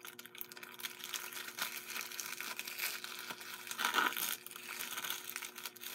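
Plastic shrink-wrap crinkling and tearing as it is peeled off a Blu-ray case, with a louder rustle about four seconds in.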